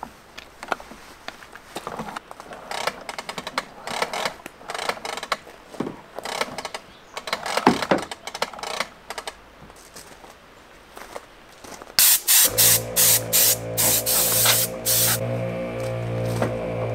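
Air hose and fittings handled with scattered clicks and rustles. About twelve seconds in, an ARB twin air compressor starts with a steady hum while compressed air hisses out in a string of short blasts, then the compressor keeps running.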